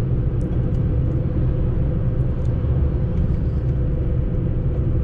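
Steady engine and road rumble inside the cabin of a Fiat Panda while it is driven, with a low drone and a steady hum.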